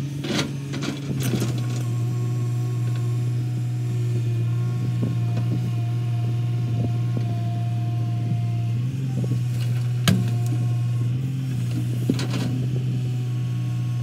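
L&T-Komatsu PC200 hydraulic excavator's diesel engine running steadily under load as it digs, swings and loads soil into a tipper truck, with a brief hydraulic whine in the middle. Clanks and knocks of the bucket and falling soil, a sharp one about ten seconds in and another around twelve seconds as the load goes into the truck body.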